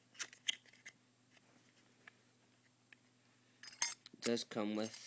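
Light clicks and rustles of small packaging being handled, with a louder cluster of clicks and rustling near the end, followed by a brief hum of a voice.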